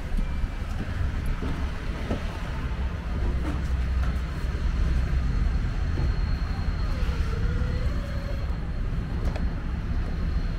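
Diesel engine of a Mercedes-Benz Sprinter 516 CDI van idling with a steady low rumble.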